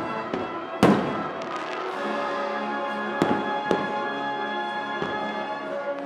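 Aerial firework shells bursting: one loud boom about a second in, then two smaller cracks a little after the three-second mark. Music with long held notes plays underneath.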